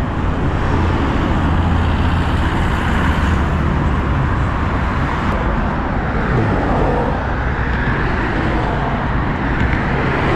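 Busy road traffic passing steadily: a continuous mix of engine and tyre noise, with no single vehicle standing out.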